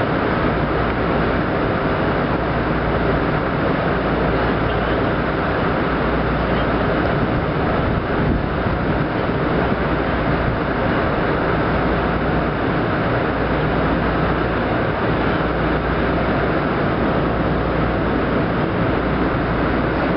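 Steady wind rushing over the microphone, a loud even noise with a heavy low rumble that stays level throughout.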